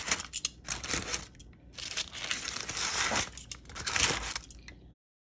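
Crinkling and rustling as the covering is peeled off a baking dish, in several irregular bursts, cutting off abruptly near the end.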